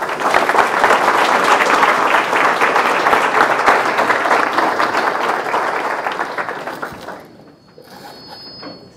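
Audience applauding: a dense clatter of many hands clapping at once, which dies away about seven seconds in.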